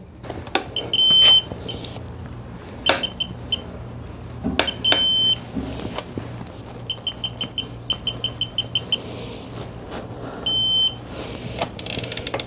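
VANPO 1/2-inch digital torque wrench beeping as lug nuts are torqued: single longer beeps, and in the middle a quick run of about ten short beeps at roughly five a second, the wrench signalling that it has reached its preset torque. Clicks and knocks of the wrench and socket come between the beeps, with a quick run of ratchet clicks near the end.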